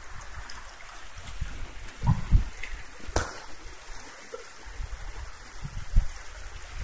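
Stream water rushing and churning through a small wooden-plank sluice, a steady splashing rush. A few low thumps come through near the middle and near the end, and there is one sharp click about three seconds in.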